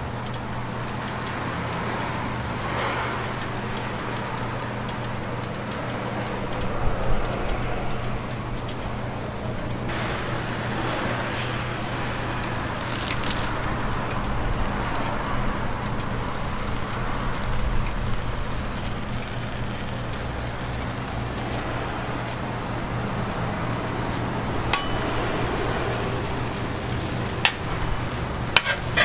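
Steady hiss and low hum of a hot flat-top griddle with toast cooking on it, with faint sizzling. A few sharp clicks come near the end.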